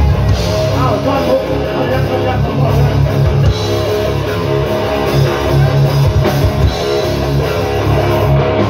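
Live rock band playing loud and without a break: electric guitar and drum kit over a heavy bass.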